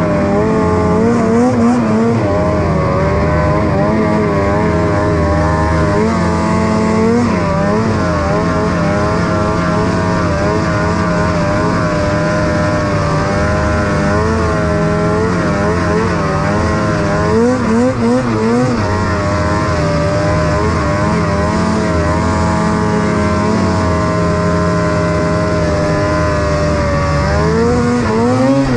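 Snowmobile engine running hard at high revs, its pitch holding high and wavering up and down a few times as the throttle is worked while the sled skims across water.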